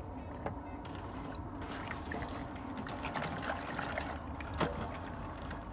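Raw split Caribbean spiny lobster halves being handled on a wet plastic cutting board: scattered small wet clicks and taps of shell, with a sharper one near the end.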